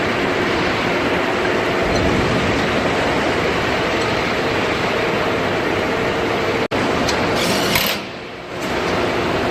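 Machinery running steadily with a rapid mechanical clatter, briefly cut off about two-thirds of the way through.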